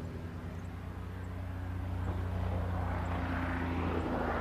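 Small propeller aircraft's engine droning steadily, with a rushing noise swelling from about halfway through.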